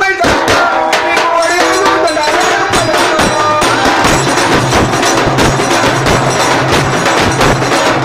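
Folk song performance: a voice singing through a microphone over fast drumming on a barrel drum beaten with a stick. After about two seconds the singing fades back and the rapid drum strokes dominate.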